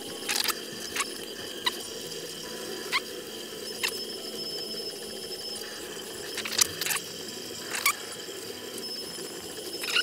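Scattered small clicks and taps, about ten of them, as the plastic extruder housing, its screws and a hex key are handled during disassembly, over a steady faint high whine.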